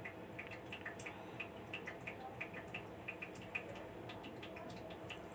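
Quiet room tone with faint, irregular small ticks, about three a second.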